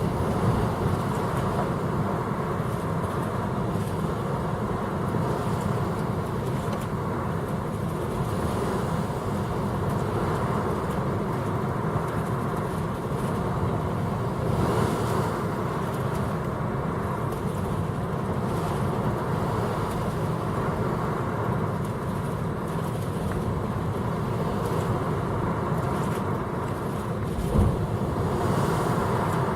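Steady low drone of a cruise motor ship under way: engine rumble mixed with the rush of water along the hull. There is one short low thump near the end.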